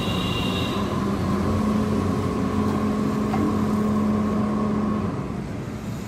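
Mobile crane's diesel engine running under load as it hoists a heavy precast concrete segment, its steady hum rising a little in steps and then dropping off about five seconds in.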